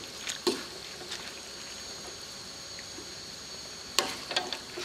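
Spatula stirring wet rice and chicken in a stainless steel pan, with a few knocks and scrapes against the pan in the first second and a cluster about four seconds in. Between them a faint steady hiss and a thin high tone.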